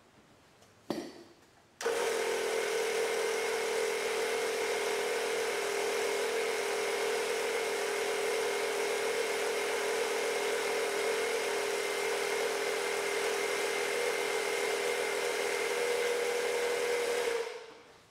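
Portable electric tire inflator running steadily, pumping air through its hose into a wheelbarrow tire's inner tube, with a steady hum over the pump noise. A short click comes about a second in, the inflator starts about two seconds in, and it stops near the end.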